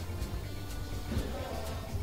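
Soft background music in a pause between spoken phrases, with a steady low hum underneath.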